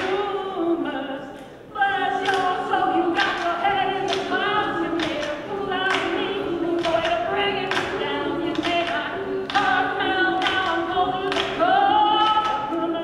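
Mixed-voice a cappella group singing in harmony over a steady beat, with a brief drop in volume about a second and a half in.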